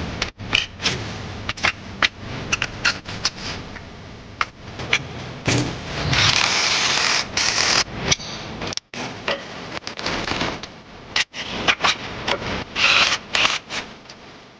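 Workshop assembly noises: a string of sharp clicks and knocks from parts and fittings being handled and fitted, with a hiss about six seconds in and again near the end.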